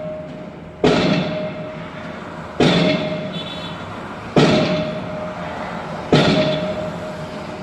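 Pile driver hammering a pile: four heavy, evenly spaced blows about every second and three quarters, each followed by a ringing tone that fades.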